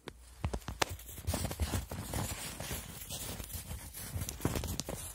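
Footsteps crunching in packed snow, irregular and several a second, as a dog bounds about and a person walks after it.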